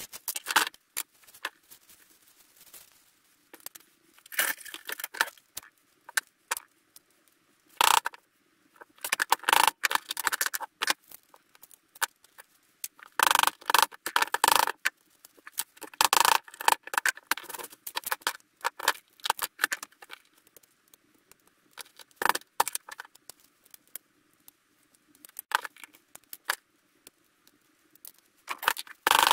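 Pliers and cutters clicking and scraping against small parts from a dismantled VHS player, in irregular bursts of clatter with short pauses between.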